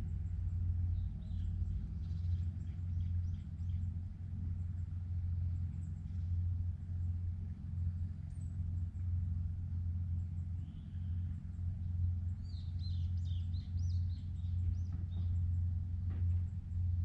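A steady low rumble that wavers slightly in level, with small birds chirping several times about two-thirds of the way through.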